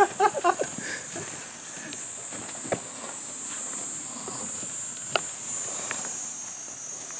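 Insects buzzing in a steady high-pitched chorus in a summer field, with a couple of short faint clicks.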